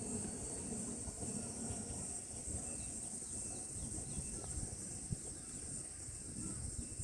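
Steady high-pitched insect chorus over a low, uneven rumble.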